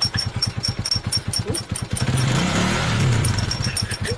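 Small motorcycle engine running with an even, rapid putt-putt, briefly louder with its pitch swinging up and down around two to three seconds in.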